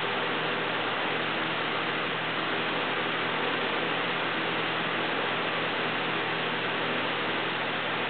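Steady, even hiss with a faint low hum beneath it.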